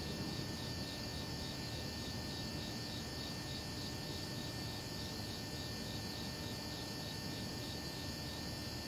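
Crickets chirping in a steady, even rhythm over a low background rumble.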